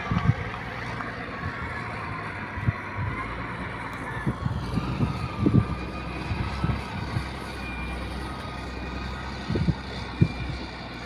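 Outdoor wind rumbling on the microphone in uneven gusts, over a faint, slightly wavering distant motor drone.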